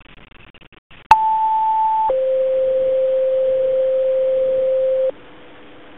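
Fire-dispatch two-tone page over a radio scanner: after a click about a second in, a higher tone holds for about a second, then a lower tone for about three seconds, alerting the fire department's pagers to a call. Faint radio static comes before the tones, and a much quieter tone lingers near the end.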